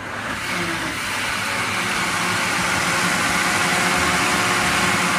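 Countertop blender starting and running at speed, puréeing cooked blackberries; the sound builds over about the first second and then holds steady.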